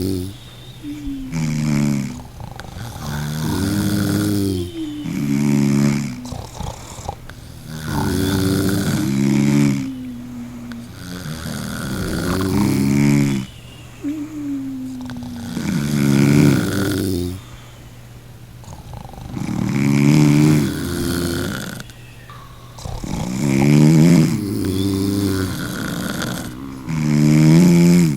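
Loud, steady snoring by a sleeping person: a rattling snore about every four seconds, each followed by a quieter breath, repeating evenly about seven times.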